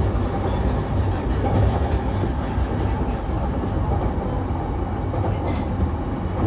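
JR East E233-3000 series electric train running: a steady low rumble of the wheels on the rails that holds an even level.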